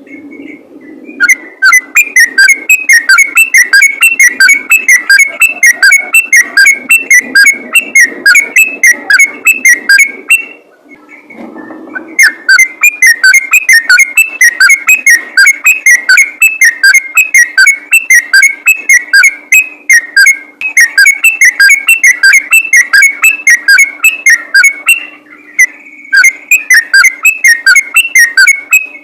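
Yellow-vented bulbul (trucukan) singing a fast, rapid-fire string of whistled notes in long bouts, broken by two short pauses, about ten seconds in and about twenty-five seconds in. A faint steady low hum runs underneath.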